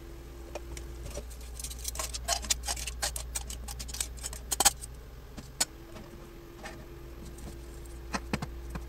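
Opened Manila clams being picked out of a frying pan into a stainless-steel bowl: a quick run of light clicks and clinks as the shells knock against each other and the metal, thinning to a few scattered clicks near the end.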